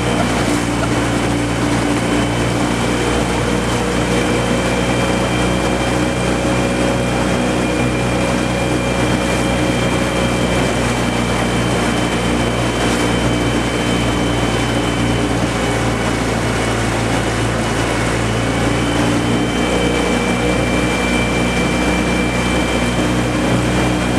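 Small boat's outboard motor running steadily, a constant engine hum with a faint high whine over it.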